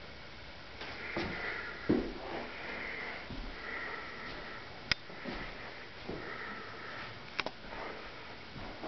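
A person breathing and sniffing close to the microphone, with a few sharp clicks, one about halfway through and a quick pair near the end.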